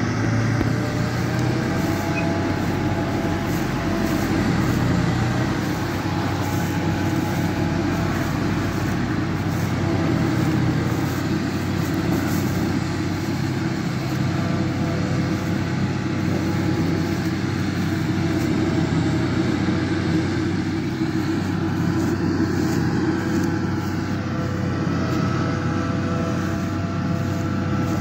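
Mengele SF 5600 self-propelled forage harvester chopping oat silage under steady load: engine and cutterhead running with a constant drone and steady, slightly wavering tones, mixed with the Zetor tractor towing the loading wagon alongside.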